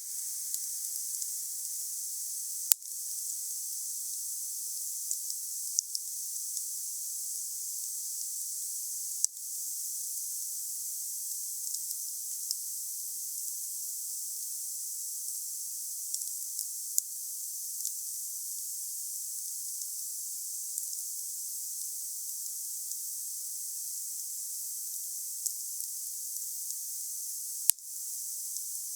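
Campfire burning: a steady high hiss with scattered small crackles and a few sharp, louder pops every several seconds.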